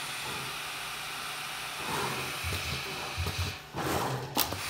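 SMTmax pick-and-place machine running a placement sequence: a steady whir from the running machine, with a few low thuds about halfway through and several sharp clicks near the end as the placement head works.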